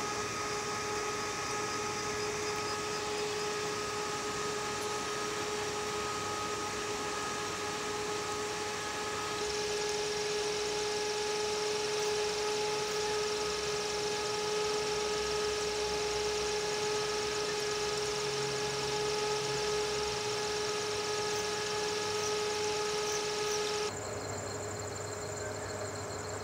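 Steady hum from aquarium equipment: a few fixed tones over a hiss. The tone shifts about nine seconds in and drops away near the end.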